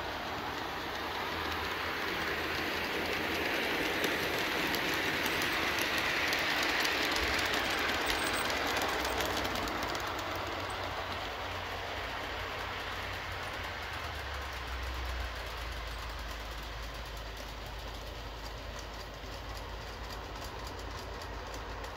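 Aristocraft G-scale FA-1 and FB-2 diesel units running on DC power, motors and gears whirring and metal wheels rolling along the track. It grows louder as the train passes close, loudest about six to eight seconds in, then fades as it moves away.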